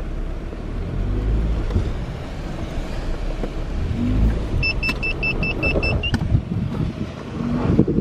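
Car driving over a rough dirt track, heard from inside the cabin: a low engine and tyre rumble with frequent knocks and rattles from the bumps. A little over halfway through, the car's warning chime beeps seven times in quick succession, then gives one slightly higher tone.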